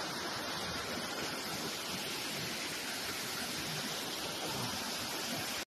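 Small waterfall's water rushing in a steady, even hiss, cutting off suddenly near the end.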